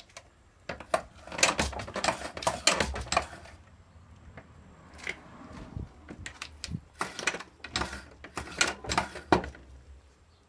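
Quick clicks and clacks of a MEC shotshell reloading press being worked by hand, with plastic 12-gauge hulls knocking into its stations, in two busy spells with a quieter stretch in the middle.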